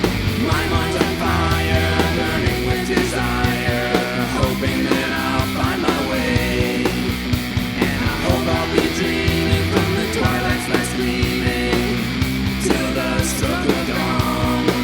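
Rock band recording with electric guitar, bass and drums playing steadily, with no clear singing.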